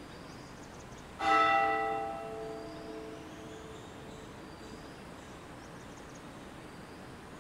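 A bell struck once about a second in, ringing on and fading away over a few seconds: the consecration bell rung at the elevation of the host during Mass.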